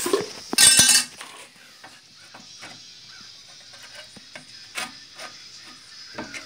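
Metal clattering loudly for about half a second, starting about half a second in, then scattered light clinks and taps as a small metal bracket is handled and held against a wooden board.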